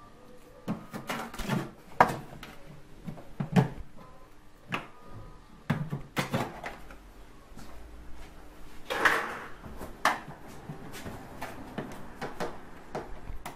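A Renault Mégane's plastic cowl grille under the windscreen being unclipped and lifted off by hand: a run of sharp plastic clicks and knocks, with a longer scrape about nine seconds in.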